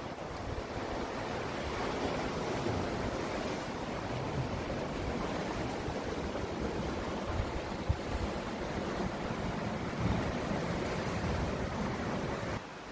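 Sea surf washing against rocks, with gusts of wind buffeting the microphone. There is one sharp knock about eight seconds in, and the sound drops away abruptly near the end.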